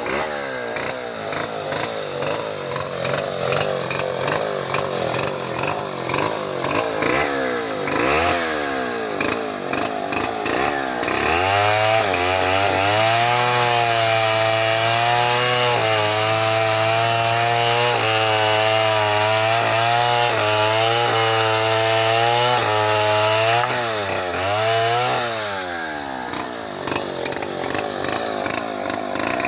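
Homemade chainsaw ripping a mango log lengthwise into boards. The engine revs rise and fall repeatedly for about the first ten seconds, then hold at a steady high speed for about twelve seconds, then drop and rise again near the end.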